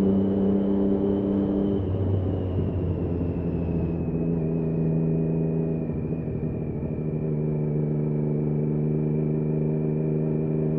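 Triumph Daytona 675's three-cylinder engine running under way at steady revs, its note changing about two seconds in, with a faint high whine that slowly falls in pitch.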